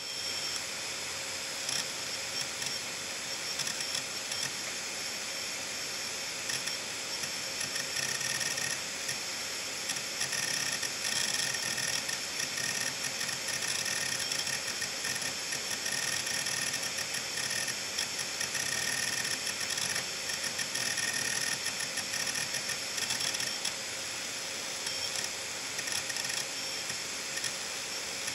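Opened Seagate Medalist 8630 (ST38630A) hard drive running with its lid off: the spinning platters give a steady whine while the head actuator arm seeks rapidly back and forth in a fast, continuous chatter of clicks, driven by several large files being written to it at once.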